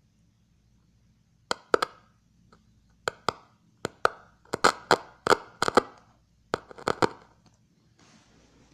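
A string of about a dozen sharp clicks, irregularly spaced and some in quick pairs, starting about a second and a half in, over a faint low hum.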